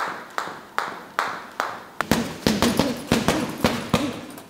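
Boxing gloves landing punches, sharp smacks at about two or three a second, turning into faster, denser combinations from about two seconds in.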